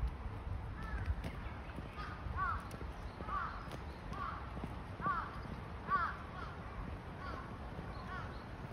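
Birds calling in a steady run of short, arching calls, about one or two a second, over footsteps on a paved path.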